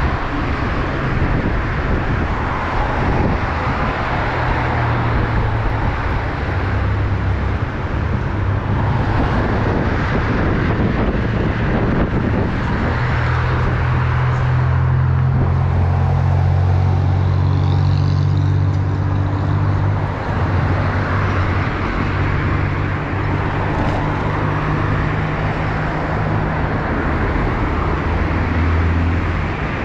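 Road traffic: cars running and passing close by amid a steady hiss of road and wind noise, heard from a moving bicycle. A nearby vehicle's low engine hum comes up strongly about 13 seconds in and holds for several seconds.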